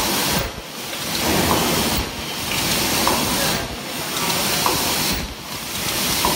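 MG-HC double-wall paper cup making machine running: a loud, steady hiss that swells and dips in a regular cycle about every one and a half seconds, with a light tick at each cycle.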